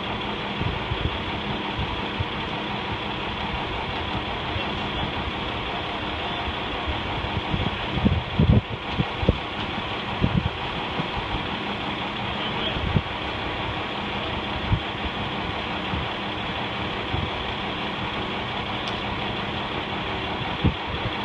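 An engine running steadily at idle, a constant hum with a few dull low thumps near the middle.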